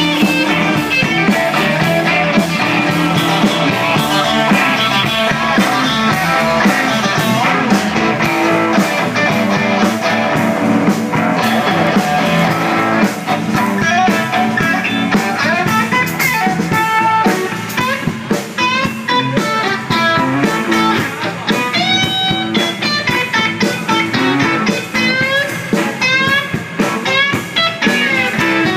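Live blues band playing an instrumental break, with a guitar lead over the band. From about halfway through, the lead plays single notes that bend up and down in pitch.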